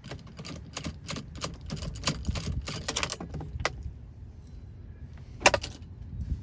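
Quick run of rapid metallic clicks from a socket wrench as the steering wheel's 16 mm center bolt is unscrewed from the column, dying away after about three and a half seconds, then one louder sharp clack about five and a half seconds in.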